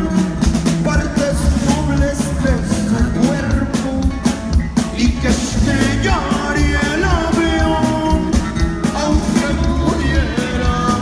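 Norteño band music with a steady beat and strong bass: an instrumental passage in which an accordion plays melodic runs over bass and drums.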